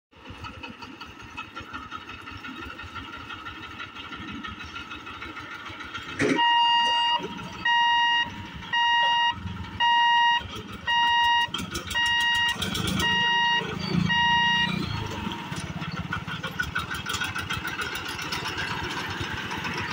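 Electric level-crossing boom barrier's warning beeper sounding about once a second, some nine beeps, after a sharp knock as the barrier starts to lift; the beeping stops once the boom is up. Small engines of motorcycles and a motorised cart then run as the waiting traffic moves off across the tracks.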